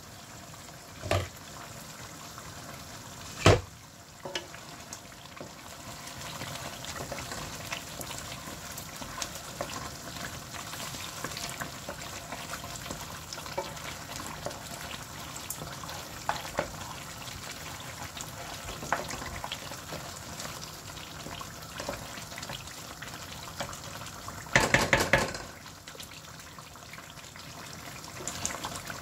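Thick lamb sauce sizzling and bubbling in a pan while it is stirred with a wooden spoon. There is a sharp knock about three and a half seconds in, and a short run of knocks near the end.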